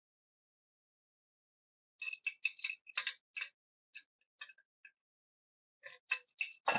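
Light metallic clicks and ticks from hand-tool work on small engine parts, coming in irregular clusters starting about two seconds in and again near the end.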